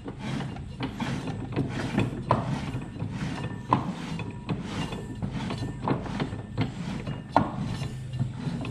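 A 1978 Yamaha Exciter snowmobile's track and drive being turned slowly by hand at the clutch, with irregular clicks and knocks as it goes round.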